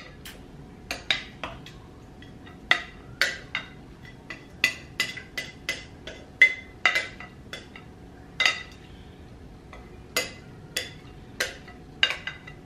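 A spoon clinking and scraping against a glass mixing bowl as meat sauce is scooped out. The sharp clinks come irregularly, about one or two a second, each with a brief ring.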